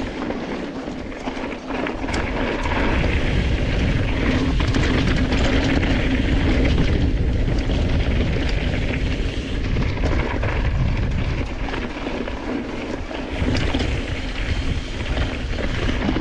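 Heavy wind rumble on the microphone, with the rattle and rolling noise of a mountain bike on a rough track.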